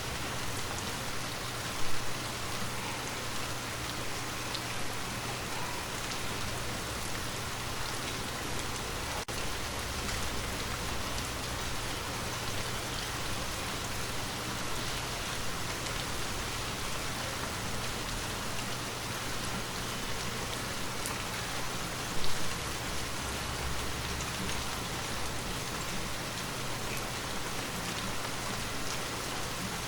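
Steady, continuous rain falling on a surface, an even patter of many drops. There are two brief louder hits, one about two seconds in and one about three-quarters through.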